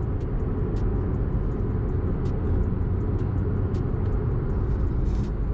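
Car under way at road speed: a steady low rumble of engine and road noise.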